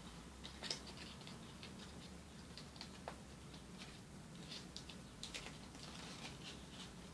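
Sheet of origami paper crinkling and crackling under the fingers as it is folded and creased: faint scattered crisp ticks, the sharpest about two-thirds of a second in.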